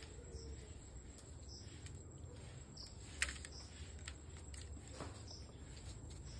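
Quiet rural background with faint, repeated high bird chirps and a low hum, broken by a single sharp click about three seconds in.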